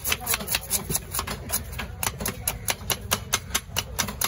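Large knife scraping the scales off a black pomfret on a wooden log chopping block, in quick, even strokes of about five a second.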